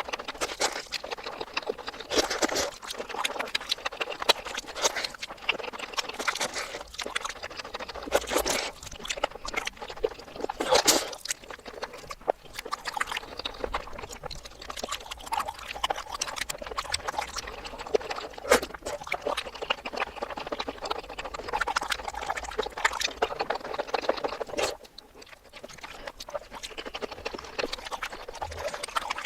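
Close-miked wet chewing, smacking and slurping mouth sounds of someone eating, played in reverse, as a dense run of irregular clicks and smacks with a brief lull near the end.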